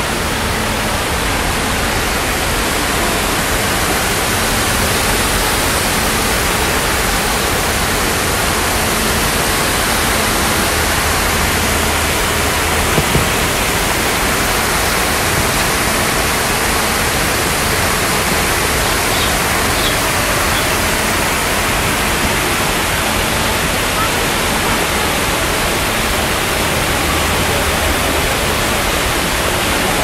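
Water cascading down a tiered rock waterfall into a pond: a steady splashing.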